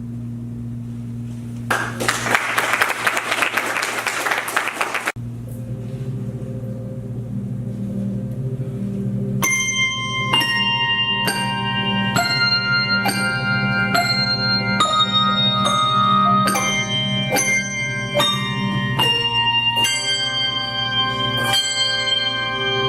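Handbell choir playing: low bells sustain under a rushing, noisy swell of about three seconds near the start. From about ten seconds in, struck handbell notes ring out roughly one and a half times a second, building into ringing chords.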